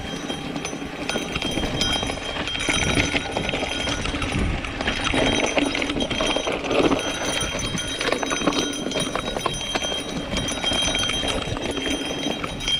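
Mountain bike rolling down a rocky dirt trail: tyres running over loose dirt and stones, with the bike rattling and clattering over the bumps.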